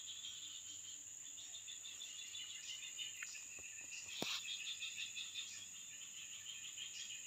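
Insects chirping in a continuous rapid pulsing trill over a steady high buzz, with a single sharp click about four seconds in.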